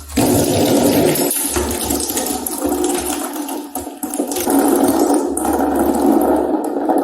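Slime being squished and kneaded: a loud, continuous wet squelching and gushing that starts abruptly, with brief dips about a second in and again about four seconds in.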